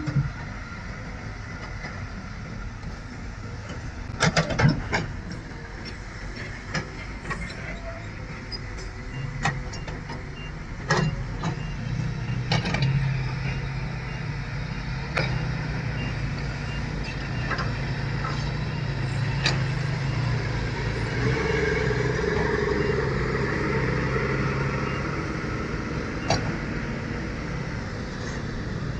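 Heavy machinery engine running steadily, its note growing louder from about nine seconds in, with sharp clanks and knocks here and there, a cluster of them about four seconds in.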